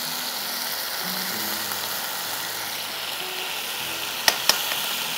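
Whole marinated chicken sizzling steadily as it fries in oil in a deep non-stick pan, with two quick knocks a little after four seconds in.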